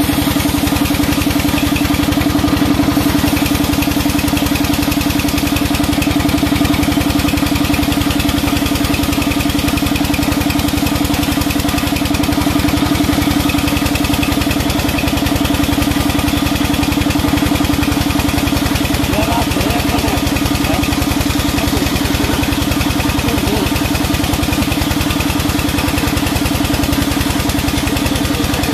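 Band sawmill running steadily with a low, even hum as a long timber is fed through the blade.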